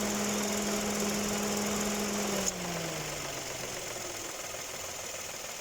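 2018 Dodge Attitude's air-conditioning compressor running with a steady whine over the idling engine. About two and a half seconds in, a click as the compressor clutch lets go, and the whine falls in pitch and fades as the compressor spins down. This is the squeak or squeal the owner traces to the compressor clutch, not a loose accessory belt.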